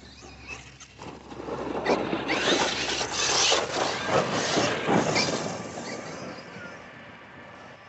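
RC off-road buggy driving past close by, the noise of its motor and tyres on the frosty grass. It builds about a second in, is loudest from about two to five seconds, then fades as the car moves away.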